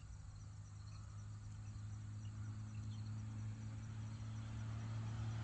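Insects chirping in a fast, even pulse over a low steady hum that slowly grows louder.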